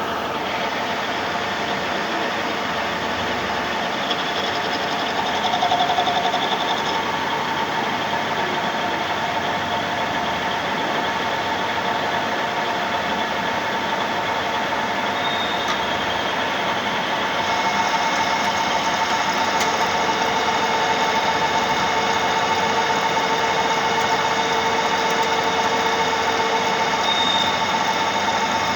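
Metal lathe running steadily: a dense mechanical whir carrying many fixed tones from its gearing. It grows a little louder about six seconds in and again a little past halfway.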